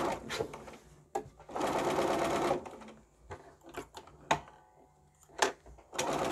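Electric sewing machine stitching quilt pieces in stop-start bursts: one burst of about a second near two seconds in and another near the end. Between them come a few sharp clicks.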